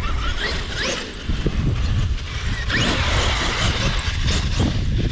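A Traxxas X-Maxx RC monster truck's brushless electric motor whining up in pitch as it accelerates, twice, over a steady low rumble.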